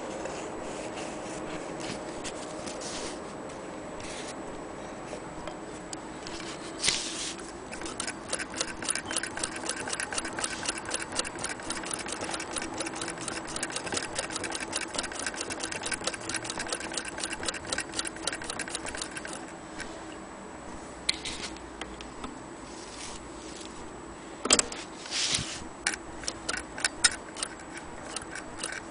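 Willcox & Gibbs chain-stitch sewing machine stitching through folded denim, making a rapid, even ticking for about twelve seconds. A few separate louder clicks and knocks follow near the end as it stops and is handled.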